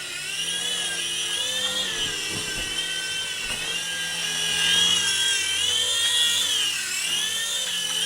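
Remote-control toy helicopter's small electric motor and rotor running with a steady high whine, the pitch wavering gently up and down.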